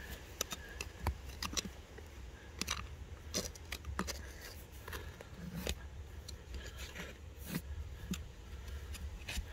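Irregular scratching and small clicks of hands sifting and poking through loose dirt and rock chips while searching for a quartz crystal.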